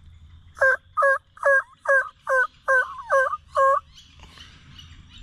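A series of eight loud turkey yelps, evenly spaced at about two and a half a second, in the rhythm of a hen turkey's yelp.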